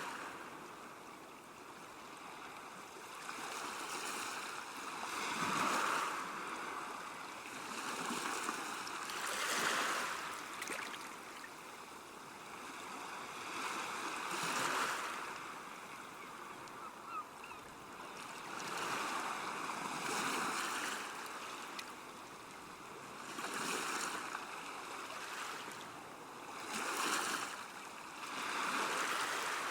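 Water washing against a river bank, rising and falling in swells every few seconds.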